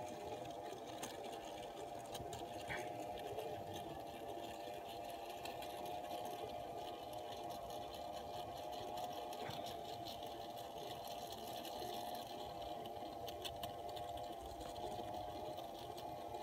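Miniature gondola lift running: a steady motor-and-cable hum with a few faint clicks.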